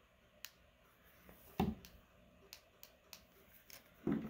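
Faint, scattered clicks and two soft knocks from a handheld radio being handled and then set down.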